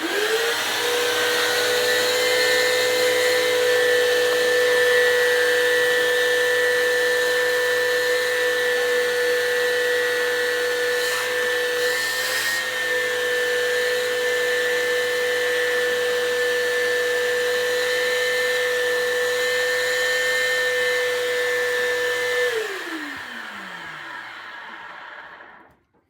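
Bissell upright vacuum cleaner switched on, its motor spinning up quickly and running with a steady whine for about 22 seconds, then switched off and winding down with falling pitch over a few seconds until it stops.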